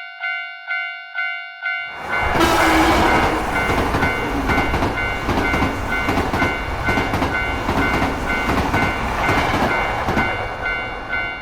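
Railroad crossing warning bell ringing in steady repeated strikes about twice a second. About two seconds in a train passes through, a loud rushing noise with wheel clatter that fades near the end, leaving the crossing bell ringing on alone.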